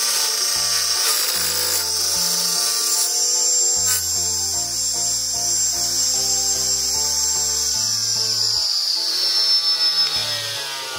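Small homemade table saw, a small electric motor spinning an 8.5 cm toothed blade, whining as it rips a thin strip of wood. Near the end the whine drops in pitch and fades, over background music.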